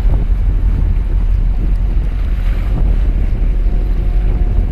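Wind buffeting the microphone as a heavy, steady low rumble, with sea water washing and splashing around the concrete tetrapods of a breakwater. A faint steady hum comes in near the end.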